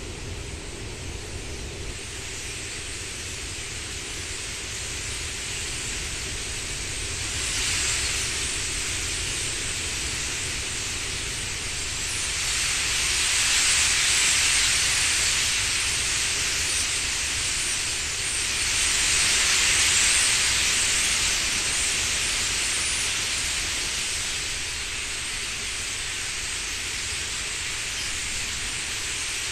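Rushing whoosh of thousands of wingbeats from a murmurating flock of starlings passing overhead, swelling and fading in slow surges as the flock wheels closer and away.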